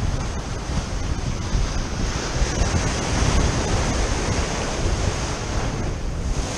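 Ocean surf breaking and washing against a concrete seawall: a steady rushing wash with a heavy low rumble, with wind buffeting the microphone.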